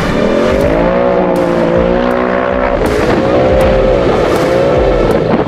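Off-road buggy engine revving hard on an autocross run, its pitch climbing and dropping again and again as the throttle goes on and off through the turns.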